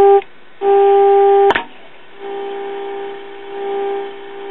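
Steady low test tone from the signal generator's modulated 455 kc signal, played through the Kitchenaire tube radio's speaker during IF alignment; the tone's loudness is what the alignment is tuned by. It drops out briefly near the start and comes back. After a click about a second and a half in, it goes on much quieter as the generator's output is turned down.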